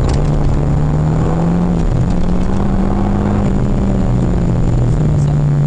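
Renault Mégane R26.R's turbocharged 2.0-litre four-cylinder engine, heard from inside the cabin while driven on track. The revs climb, drop sharply about two seconds in, climb higher, then fall back and hold lower near the end.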